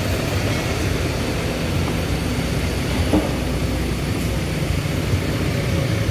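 Road traffic: cars and a pickup truck driving slowly past, a steady low engine rumble with tyre noise.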